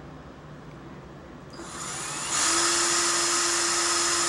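Electric drill that starts about a second and a half in, spins up and then runs at a steady high whine, driving a screw into the model's support.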